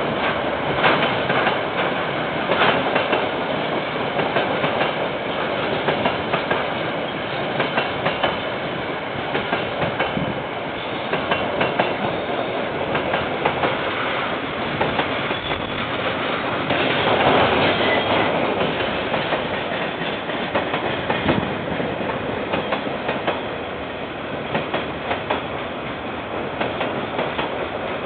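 A long freight train's wagons rolling past: a steady rumble with repeated clickety-clack of the wheels over the rail joints, swelling a little about two-thirds of the way through. Heard through a security camera's microphone, so it sounds dull and cut off at the top.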